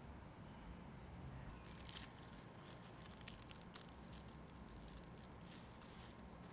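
Thin paper wrapper of a pressed pu-erh tea cake crinkling and rustling as hands peel it back from the cake. It is faint, with a run of crisp, irregular crackles starting about a second and a half in.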